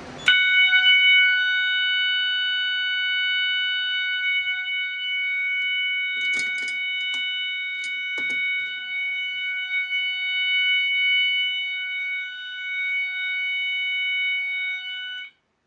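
Fire alarm sounder on a Simplex 4010 test system, set off by a pull station, sounding one steady, unbroken tone. It cuts off suddenly near the end as the alarm is silenced, and a few faint clicks come in the middle.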